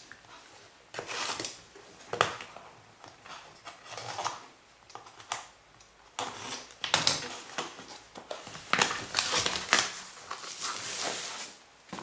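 Plastic wrapping being opened and pulled off a magazine-and-parts pack: crinkling plastic and rustling card in scattered bursts, busiest over the last few seconds.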